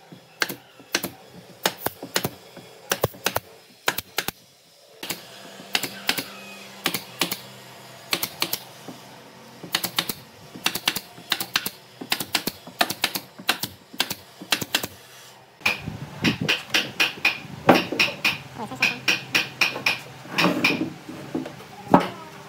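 A brad nailer driving nails into pine boards: dozens of sharp shots in irregular runs, often several in quick succession.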